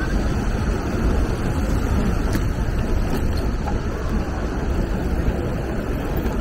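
Wind rushing over the microphone of a camera carried on a moving bicycle: a steady, even low rumble with no speech.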